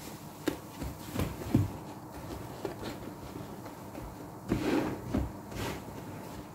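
Soapy Muc-Off sponges being squeezed and moved by hand in a plastic tub of sudsy laundry-liquid water, giving wet squelches and splashes at irregular moments. The loudest come about a second and a half in and again around four and a half to five seconds.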